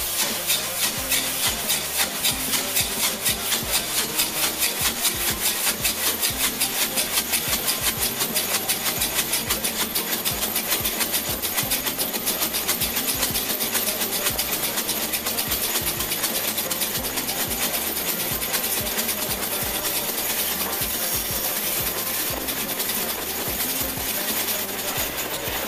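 Steam locomotive 64 491, a class 64 tank engine, working along the line with its exhaust beating in an even rhythm of about three to four chuffs a second. The beats are sharp at first and blur into a steadier sound in the second half.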